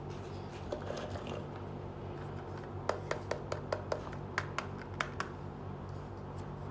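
Small hard-plastic toy water dispenser handled and set down: a quick run of about ten light plastic clicks and taps over roughly two seconds, after a soft rustle about a second in, over a steady low hum.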